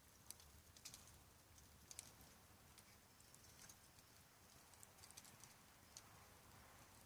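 Faint crackling of a wood campfire: scattered sharp pops and snaps at irregular intervals over a low hiss.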